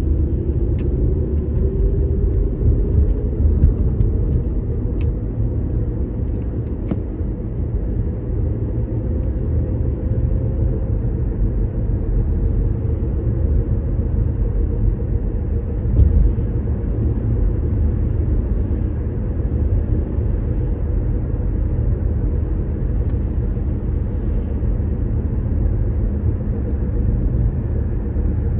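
Inside a moving car: a steady low rumble of tyre and engine noise, with the engine note rising gently over the first several seconds as the car gathers speed. A brief bump sounds about halfway through.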